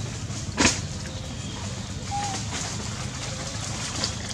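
Outdoor background with a steady low rumble, a single sharp knock just over half a second in, and a short chirp about two seconds in.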